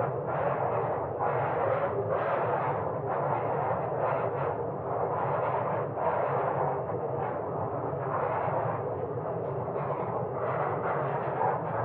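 Wood fire crackling in a fireplace: many small pops and snaps over a steady rushing hiss.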